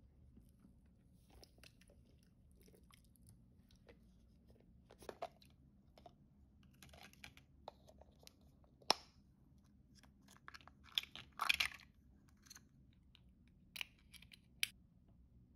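Fingers handling and opening a wet plastic toy capsule: scattered soft clicks and crackles of plastic. A sharp click comes about nine seconds in, and a dense cluster of crackling follows a couple of seconds later.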